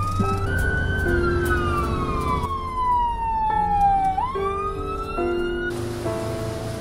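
Ambulance siren wailing, heard from inside the ambulance: the pitch falls slowly over about four seconds, then climbs quickly again before starting its next fall.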